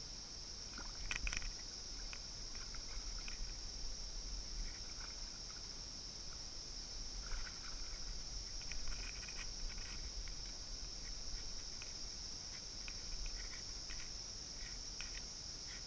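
Steady high-pitched insect drone, broken by short splashes of a hooked Eastern freshwater cod thrashing at the water's surface beside the boat, the loudest about a second in and around nine seconds in.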